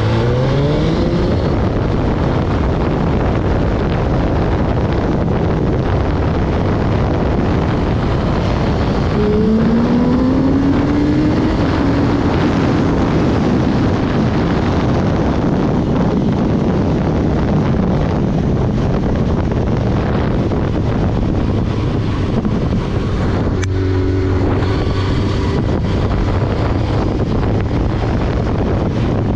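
Suzuki GSX-R1000 inline-four engine pulling hard under a rider, its pitch climbing as it accelerates early on and again about ten seconds in, easing off briefly near the end, over heavy wind noise on the microphone.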